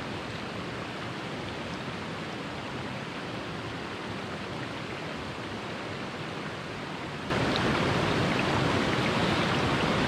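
Mountain creek flowing, a steady rushing wash of water that jumps suddenly louder about seven seconds in.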